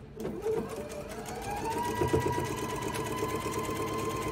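Electric sewing machine starting up and stitching a seam through pieced quilt fabric. The motor's whine rises over the first second or so, then holds steady over the rapid ticking of the needle.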